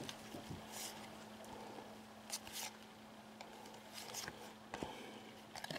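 Faint handling of trading cards: cards slid and flipped by hand, giving a few soft rustles and light taps over a faint steady hum.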